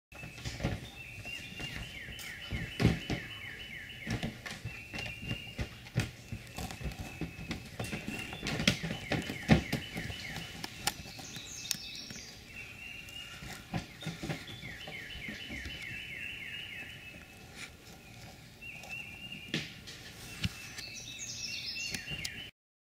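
A bird singing phrases of quick descending notes, repeated again and again with short pauses between phrases, with a higher call twice. Scattered sharp knocks and rattles come and go, loudest around three seconds in and around nine seconds in.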